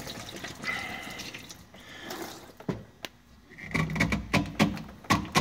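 Diesel fuel trickling and dripping from a Fass fuel filter as it is unscrewed by hand from the pump unit's base, with scattered clicks and knocks of handling. The pump sits below the fuel tank, so fuel keeps draining out by gravity once the filter is loosened.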